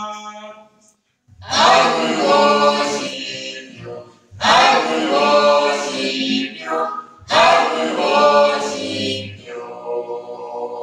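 Small mixed vocal group of four singing a cappella in harmony. A held chord fades out, there is a short pause about a second in, then three loud phrases each open with a strong attack, and a sustained chord rings near the end.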